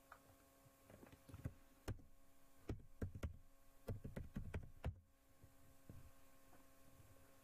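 Faint keyboard typing: a quick run of key clicks about three seconds in, then a couple of single clicks, over a steady low electrical hum.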